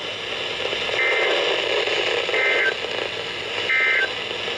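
Three short bursts of NOAA Weather Radio SAME data tones, a warbling two-tone digital chirp about a third of a second long, each followed by about a second of pause: the end-of-message code that closes a severe thunderstorm warning. Steady radio receiver hiss runs underneath.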